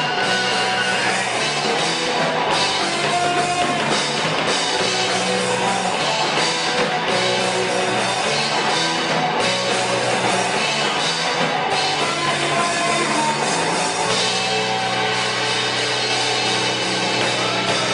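Rock music played on drum kit and electric guitar, at a steady, loud level.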